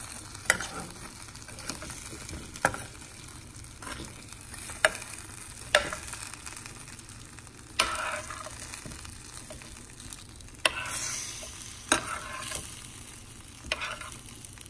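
Metal tongs clacking against a hot roasting pan as baked chicken wings are turned over, with the pan juices sizzling underneath. A sharp clack comes every second or two over a steady sizzle.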